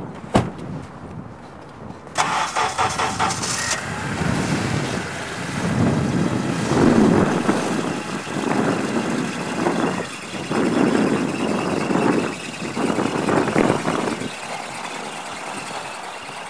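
Car engine cranked and started after a sharp click, then running with the revs rising and falling several times before settling to a steadier hum.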